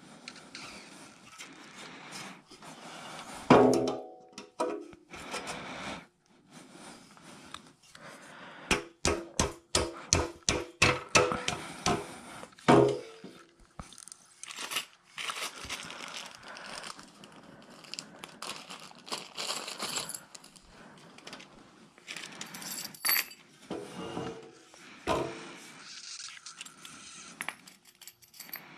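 Aluminium cart frame and tube parts being handled and set down, with small metal pins and rings jangling out of a plastic bag: scattered clinks, knocks and rustles, with a quick run of sharp taps, about three a second, around a third of the way in.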